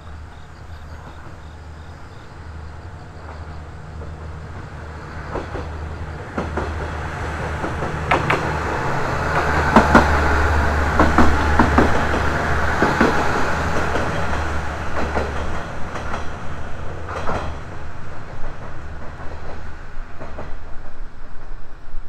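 JR KiHa 110 diesel railcar passing close by: the low drone of its diesel engine grows louder to a peak about ten seconds in, and the wheels give a run of sharp clacks over the rail joints as the cars go past.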